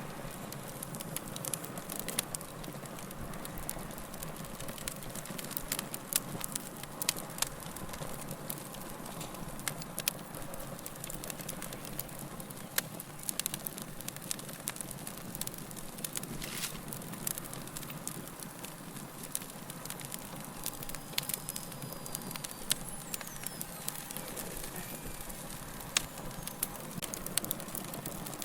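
A fire crackling: irregular sharp pops and snaps over a steady soft hiss.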